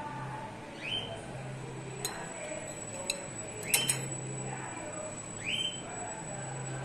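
A few light metallic clinks of small plasma-cut steel parts being handled, several close together near the middle. A short rising chirp repeats about every two seconds.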